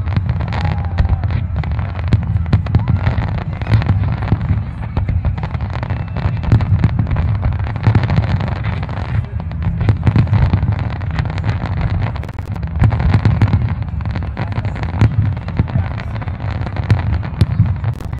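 Fireworks display: many aerial shells bursting in quick succession with crackling, the booms overlapping into a continuous low rumble.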